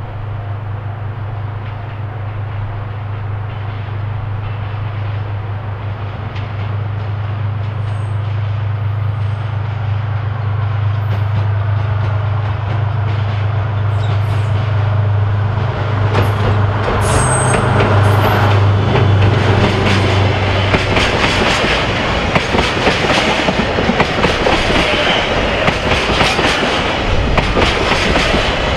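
JR Freight DF200 diesel-electric locomotive approaching with a steady low engine drone that grows louder, then passing; from about halfway on, the wheels of its loaded oil tank wagons clatter on the rails with many sharp knocks.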